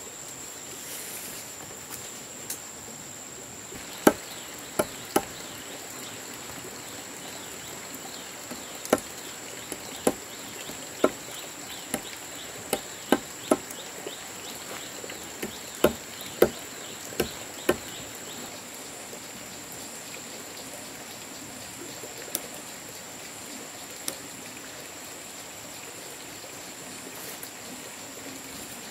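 Scattered sharp clicks and taps of a knife and steel tape measure on sawn timber beams as they are measured and marked out, most of them in the middle stretch. Under them runs a steady high-pitched insect drone.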